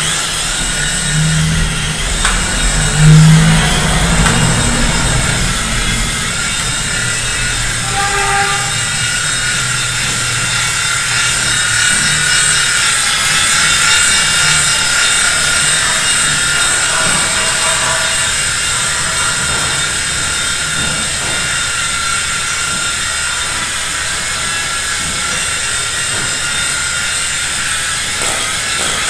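Small shrimp-shaped coaxial RC toy helicopter's electric motors and twin stacked rotors whirring in flight, a steady high whine that wavers a little as the throttle changes. A couple of low thuds in the first few seconds as it lifts off the floor.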